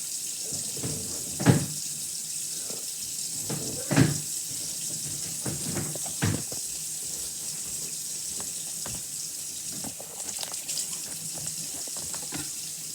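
Water running steadily from a kitchen tap into a sink, with three sharp knocks about a second and a half, four and six seconds in.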